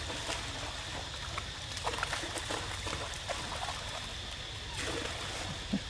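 Water splashing and dripping as macaques clamber out of a pool onto wet stone steps, in short irregular bursts over a steady background hiss.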